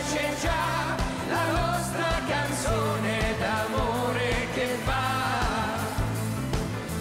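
Italian pop song performed live: a sung melody over band accompaniment with a steady beat.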